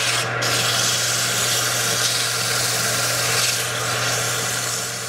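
Sandpaper held by hand against a denim-and-epoxy micarta blank spinning on a wood lathe: a steady, scratchy hiss over a steady low hum.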